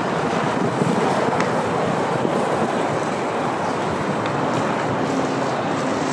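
Steady city street noise of traffic going by.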